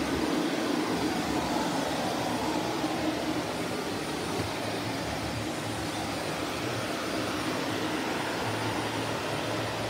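Shark Navigator Lift-Away Professional upright vacuum cleaner running steadily: a constant rush of air over a steady motor hum.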